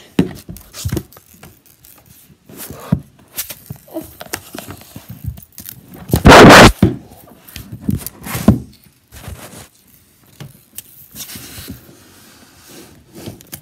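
Handling noise on a desk close to the microphone: scattered knocks and scrapes as things are picked up and set down, with one loud, dense rubbing burst about six seconds in as the recording phone itself is moved.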